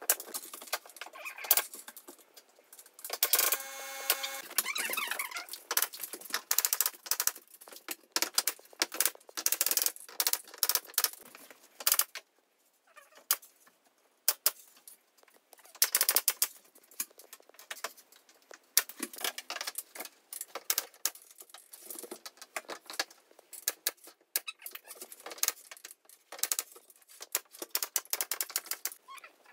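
Irregular clicks, taps and rattles of work overhead as an LED strip channel is fixed along a ceiling edge, with a cordless drill whirring briefly about three seconds in.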